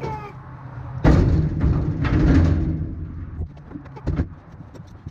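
Rustling, rubbing handling noise with a low rumble about a second in, lasting a second and a half, then scattered light clicks and knocks as hands work inside a generator's engine compartment near the battery.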